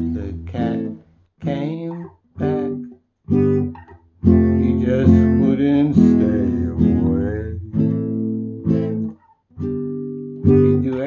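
Nylon-string classical guitar strumming barre chords, one chord after another with short silent breaks between several of them, the chords changing as the fretting hand moves along the neck.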